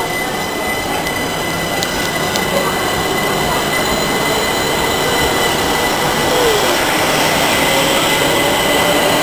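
Southern Class 377 Electrostar electric train moving along the platform: a steady rumble of wheels on rail with a constant high whistle, and from about two-thirds through a whine that rises slowly in pitch.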